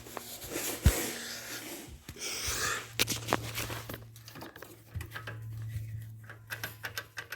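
Worn front drive axle on a BMW E9x xDrive clicking rapidly over a steady low hum, a fast run of sharp clicks starting near the end: the clicking of a bad axle joint.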